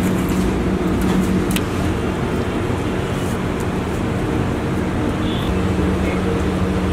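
Steady mechanical drone with a low, even hum, with a few light clicks about a second in.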